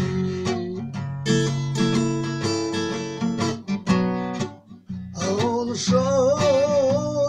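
Acoustic guitar strummed in chords, with a brief drop in the strumming about two-thirds through. Then a man's voice comes in on a long held note with vibrato over the guitar.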